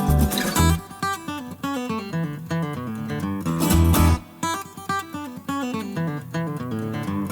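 Background music: acoustic guitar with bass, strummed and picked notes.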